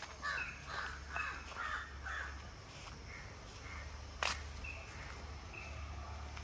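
A crow cawing five times in quick succession, about half a second apart, then one sharp knock about four seconds in. A short high note repeats in the background.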